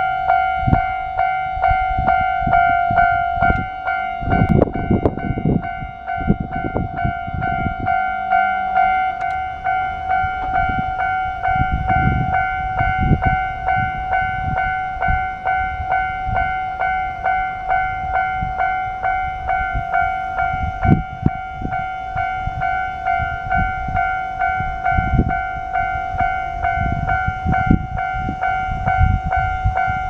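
Japanese railway level-crossing electronic alarm ringing, a steady tone pulsing about twice a second without a break. Low rumbling noise swells and fades several times underneath it.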